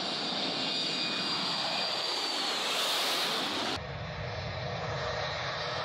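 Jet airliner engines at takeoff power as a low-flying jet passes: a high whine over a rushing roar, loudest about three seconds in. Just before four seconds the sound cuts abruptly to another jet's engine roar, duller and with more low rumble.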